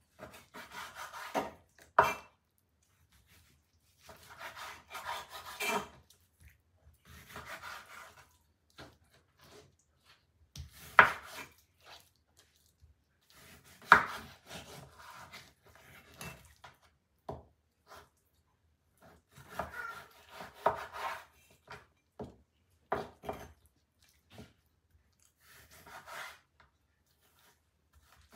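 Cleaver slicing raw chicken breast on a wooden cutting board: drawn cutting strokes through the meat in spells of a second or two with pauses between, and a few sharp knocks as the blade meets the board.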